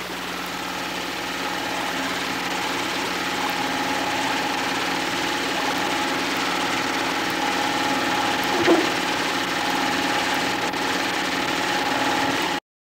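Steady mechanical whir and hum of Super 8 film equipment's motor running, with one brief faint sound about nine seconds in. It cuts off suddenly near the end.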